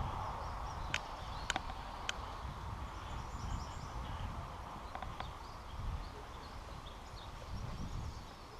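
Footsteps moving through brush and undergrowth, uneven thuds and rustling. Three sharp clicks come in quick succession about a second in, and two more about five seconds in.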